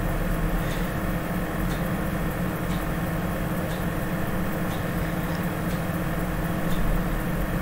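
Steady low machine hum, with faint light ticks about once a second.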